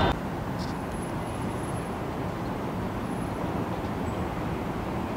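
Steady outdoor city rumble of distant traffic and rail noise, with a few faint, brief high-pitched squeaks.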